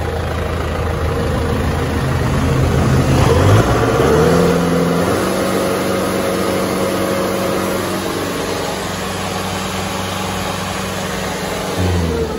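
Kubota M6040SU tractor's diesel engine revved up from idle about two seconds in, held steady at high revs near 2,800 rpm, then dropping back toward idle near the end.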